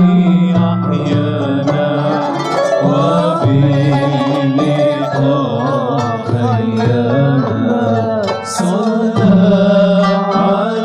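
Live Andalusi and Arabic-style ensemble music: a sustained low drone under an ornamented melody that glides between notes, with a brief high shimmer about eight and a half seconds in.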